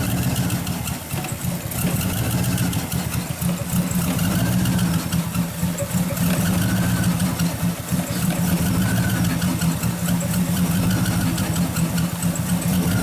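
2007 Cadillac Escalade V8 running at idle with an uneven, wavering note, the sign of a random misfire that the scan tool pins on cylinders 7 and 8.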